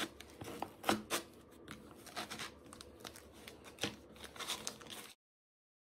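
Hands squeezing and kneading homemade kinetic sand, made from sand bound with glue and contact-lens solution, in a bowl. It gives scattered crackling and crunching, with a few louder crunches about a second in and again near four seconds. The sound cuts off about a second before the end.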